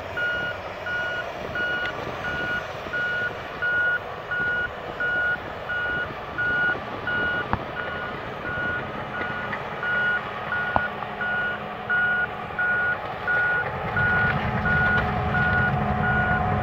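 Reversing alarm of heavy earthmoving machinery beeping steadily, about three beeps every two seconds, over a diesel engine running. The engine grows louder near the end as a machine works harder.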